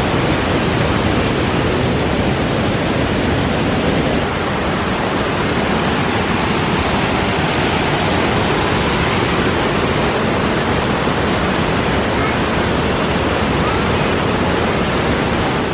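Waterfall rushing: white water pouring over rocks makes a loud, steady, even noise throughout.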